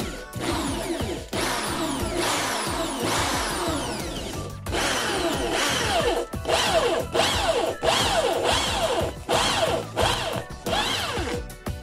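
Electric drill running with a twist bit boring through a plastic disc, the bit grinding into the plastic and throwing off shavings. Background music plays underneath.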